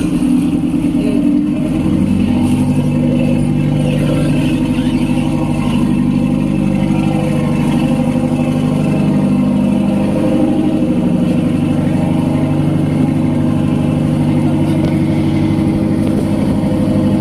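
Small service boat's engine running steadily at an even pitch, loud and close.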